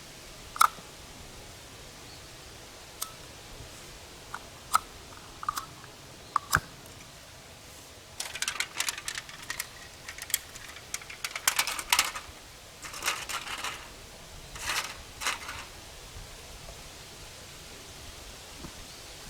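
Close-up handling noise: a few sharp clicks spaced over the first several seconds, then several bursts of crinkling from about eight to fifteen seconds in, as something crinkly is handled.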